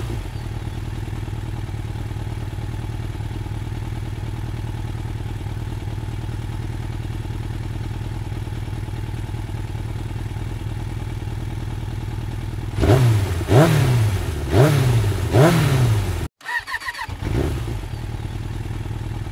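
Motorcycle engine idling steadily, then revved four times in quick succession near the end, each rev rising and falling in pitch. It drops out for an instant, then idles again with one short blip.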